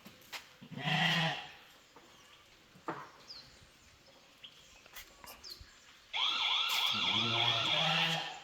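Sheep bleating: a short bleat about a second in, then a long, quavering bleat from about six seconds in until near the end.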